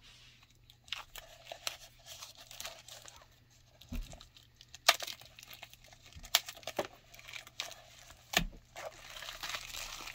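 Clear plastic wrapping crinkling and tearing as hands work it open, with scattered sharp clicks and taps, the loudest about five seconds in.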